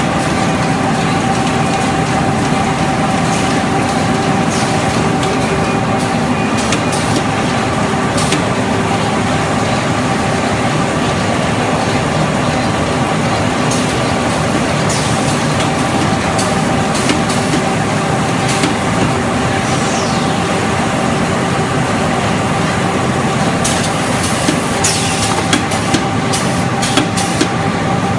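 Automatic handkerchief-tissue folding and packing machinery running: a loud, steady mechanical hum with a few constant tones. Sharp clicks and clacks are scattered through it and come more often near the end.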